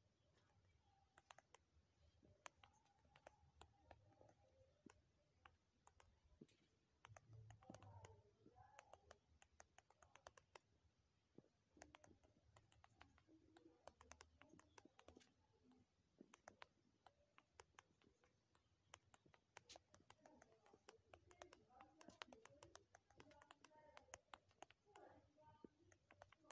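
Faint, irregular taps of typing on a smartphone's on-screen keyboard, several clicks a second.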